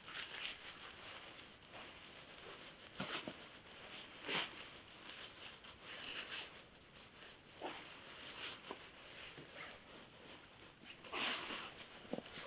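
Irregular rustling and crinkling of dry fallen leaves and a sheet being handled by hand, coming in short bursts with the loudest about three, four and eleven seconds in.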